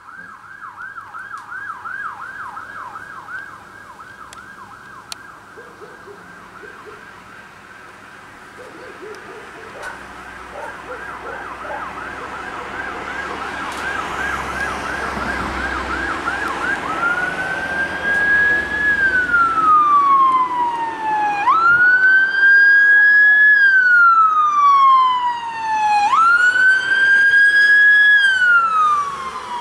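Siren of an approaching fire and rescue van, growing louder: first a fast yelp sweeping up and down about two and a half times a second, then, a bit over halfway through, a slow wail that jumps up and glides down over about four seconds, three times as the van passes close.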